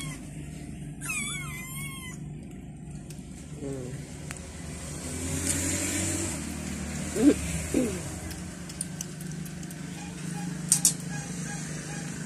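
A motor vehicle passing, its sound swelling and fading about five to seven seconds in, over a steady low hum. A brief warbling high chirp comes about a second in, and two short calls come near the middle.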